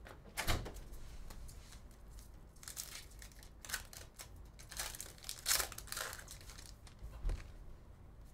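Trading cards being flipped and slid against one another in the hand: a series of short, irregular papery swipes and crinkles about a second apart.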